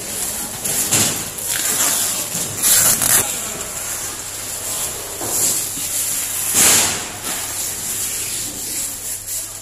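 Cardboard carton and clear plastic film being handled on a steel packing table: irregular rustling and scraping, loudest about three seconds in and again near seven seconds, over a steady hiss and low hum of the processing room.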